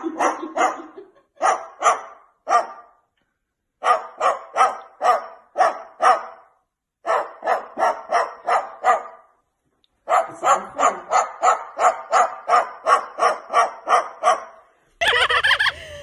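Dog-like barking in quick runs of sharp barks, about four to five a second, broken by short pauses.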